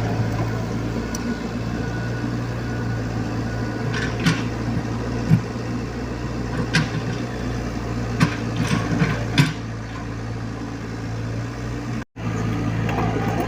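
Diesel engine of a mini excavator or dump truck running steadily, with a handful of sharp knocks and clanks in the middle stretch, such as rock and metal striking as the machines work. The sound cuts out completely for a split second near the end.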